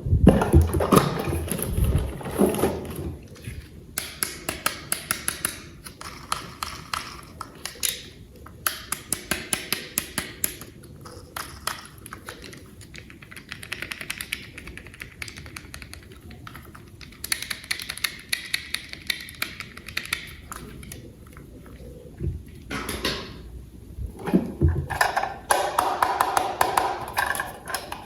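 Small plastic toy parts being handled and clicked together, in quick runs of light clicks and taps with short pauses between.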